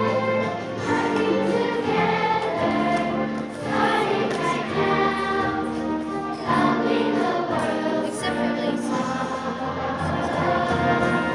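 Elementary school children's choir singing a song, holding notes for about a second at a time.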